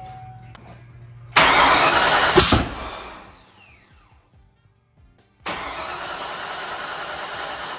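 Turbocharged Ford 5.0 small-block V8 on freshly installed Holley Terminator X EFI being cranked on a first start attempt. About a second and a half in there is a loud burst of about a second as it turns over and fires, winding down with a falling whine. After a short silence a steady engine noise starts again; the engine does not yet stay running.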